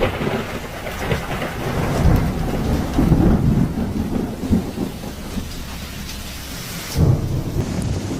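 Storm with heavy rain and a low, uneven rumble of thunder or wind throughout. The sound changes abruptly about seven seconds in.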